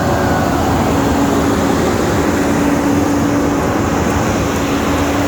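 Heavy machinery at a concrete slab pour running steadily: a loud, constant engine drone with a steady hum.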